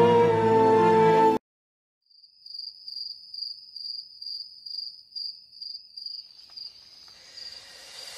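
Background music cuts off about a second in; after a short silence, a high, even chirping, about three pulses a second like a cricket, starts and runs on, with a hiss swelling in near the end.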